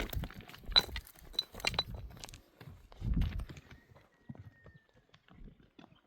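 Irregular clopping and scuffing of a donkey's hooves on stony ground, with a few short high chirps about a second in.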